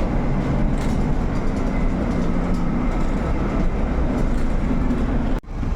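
Steady rumble and hum of a Metronit articulated bus heard from inside the cabin. It cuts off abruptly near the end.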